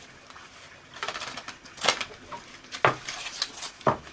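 Handling noise: a short rustle about a second in, then three sharp clicks or knocks about a second apart.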